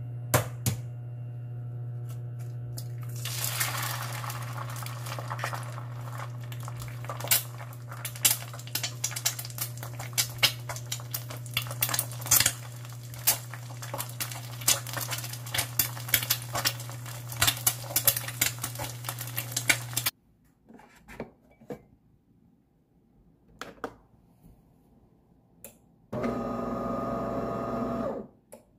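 An egg frying in oil in a ceramic-coated frying pan on an induction cooktop. The cooktop hums steadily under sizzling and sharp crackles of spitting oil, which swell a few seconds in. After about twenty seconds this stops, and near the end a DeLonghi coffee machine whirs for about two seconds.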